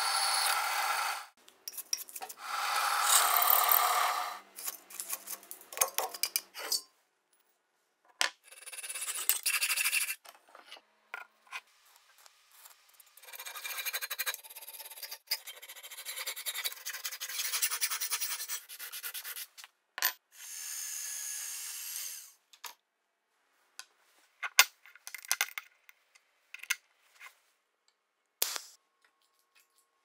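Metalworking tool sounds cut one after another. First a drill press bit cuts into a metal angle piece. Then comes a long run of rapid hacksaw strokes through a metal block clamped in a vise. Near the end, metal parts click and tap as they are set down on a wooden bench.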